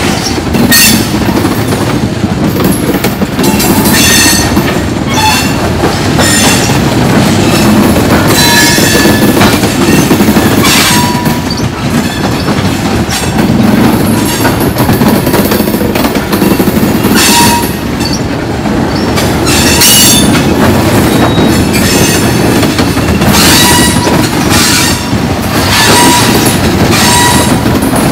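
Loaded freight gondola cars rolling past: a steady rumble of steel wheels on rail, broken every second or two by short squeals and screeches from the wheels.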